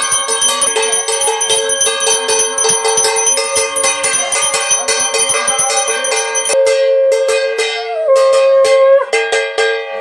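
Puja hand bells ringing rapidly and continuously, a rich metallic ringing. About two-thirds of the way through, a long held tone joins them, rises a step and then falls back, while the ringing strokes go on.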